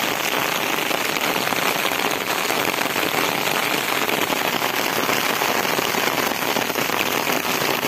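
Steady rain falling, an even hiss of many drops without let-up.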